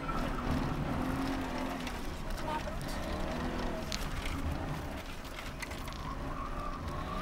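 Alfa Romeo 33 1.3 VL's flat-four engine heard from inside the cabin, revving up and down as the car is driven hard between corners, its pitch rising again near the end.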